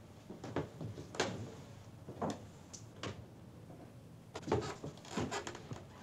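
A dozen or so sharp, irregularly spaced knocks and clunks, some in quick pairs, with a small room's echo over a faint hiss.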